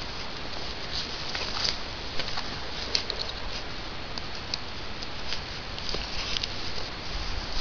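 Footsteps through dry leaf litter and clothing rubbing against the microphone, with scattered small crackles and rustles.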